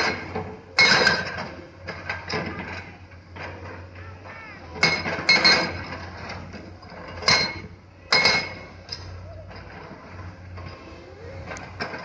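Irregular, sharp clanks of metal striking stone, ringing briefly, about five times, over the low, steady hum of a Komatsu excavator's diesel engine working among the stone.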